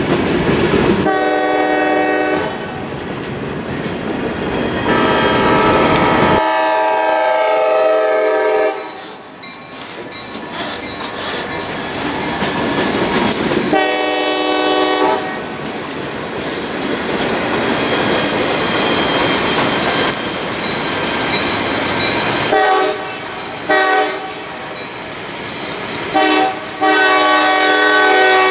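Diesel locomotive's multi-chime air horn blowing repeated blasts, some long and some short, over the rumble and wheel clatter of a moving freight train.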